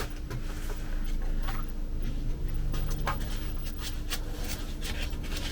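Packing foam rubbing and scraping as it is worked loose from the newly unboxed 3D printer, with a scatter of small clicks.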